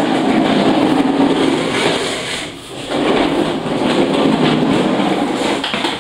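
The plastic wheels of a child's ride-on twist car rolling over a wooden floor, with a short lull a little before halfway.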